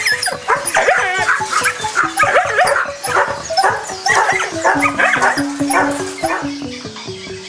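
Dogs yelping and whimpering in many short, bending cries that thin out near the end, over background music with a plain stepped melody.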